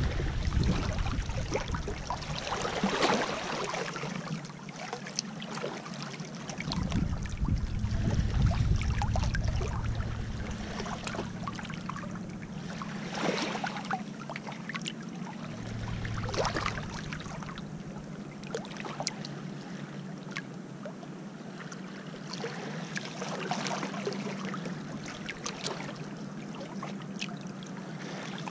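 Small waves lapping and trickling over a stony, pebbly shoreline close to the microphone, with repeated soft washes and small splashes. Wind gusts on the microphone add a low rumble in the first ten seconds or so and again briefly later.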